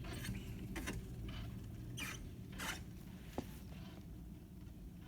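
Chairlift ride: a steady low rumble with a few short rustles, and one sharp click about three and a half seconds in.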